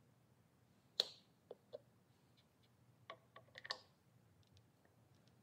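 Metal valve cover being fitted onto a Predator 420 engine's cylinder head: one sharp click about a second in, then a few light clicks and taps, bunched together past the three-second mark.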